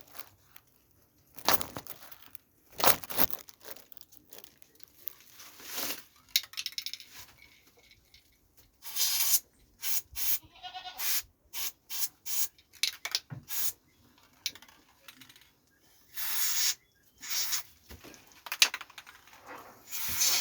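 Ectoline insecticide spray hissing in a dozen or so short bursts onto a goat's maggot-infested foot wound to kill the live maggots. A goat bleats briefly about halfway through.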